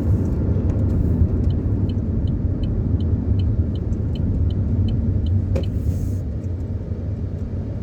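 Car engine and road rumble heard from inside the cabin as the car pulls over to park, with the turn-signal indicator ticking about three times a second for several seconds in the middle.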